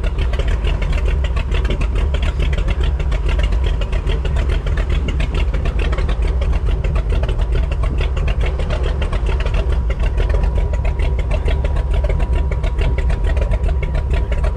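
A boat motor running steadily while trolling, mixed with wind and water noise on open, choppy water.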